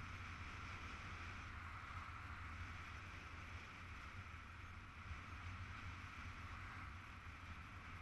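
Steady rush of wind over the microphone of a camera carried by a paraglider pilot in flight in strong wind, with a low rumble underneath and no breaks.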